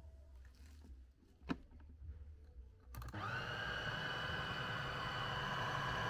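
Food processor mixing a batter: after a pause broken by one sharp knock, its motor is switched back on about halfway through and runs steadily with a high whine.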